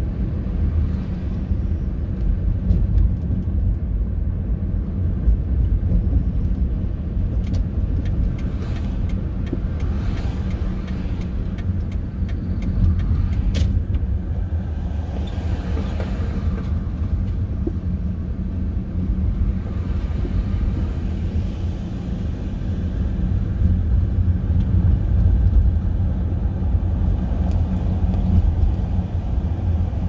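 Steady low road and engine rumble heard from inside the cabin of a 1999 Ford Taurus driving along, with a few faint clicks partway through.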